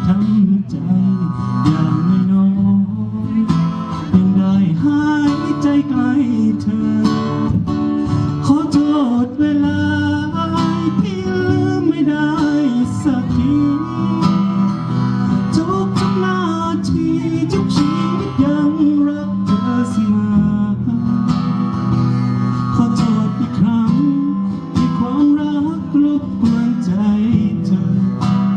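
A live band playing a song, with guitar prominent and a singer's voice.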